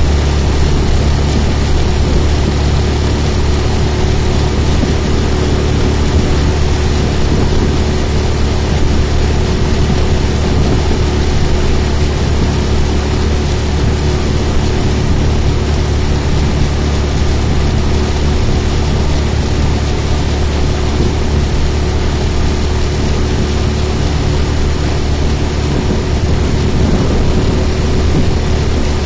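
Inflatable boat's outboard motor running at a steady speed, with a constant rush of wind and water noise over it.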